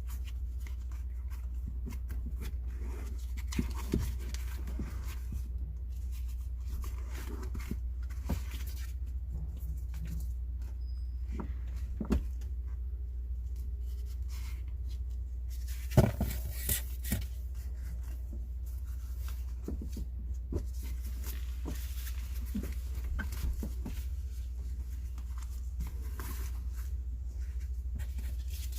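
Scattered light knocks, clicks and rustles of hand work on an air-conditioner installation, with a sharper knock about halfway through, over a steady low hum.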